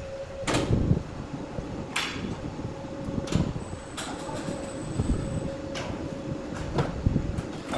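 Sawmill wood saw machinery running with a steady hum and low rumble, broken by sharp knocks and clatters about once every one to one and a half seconds.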